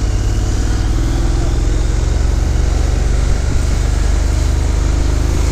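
Motorcycle engine running steadily at a cruising pace, with wind rushing over the microphone.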